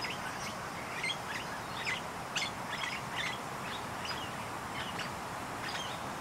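Birds chirping: many short, high calls at irregular intervals, a few each second, over a steady outdoor background hiss.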